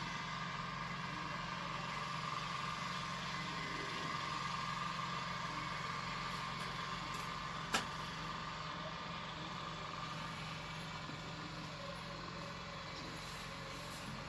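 Steady mechanical droning hum with no change in pitch, with a single sharp click about eight seconds in and faint marker strokes on a whiteboard.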